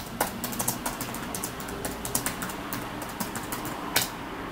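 Typing on a keyboard: a quick run of key clicks for the first two and a half seconds, then a few scattered taps, with one sharper click about four seconds in.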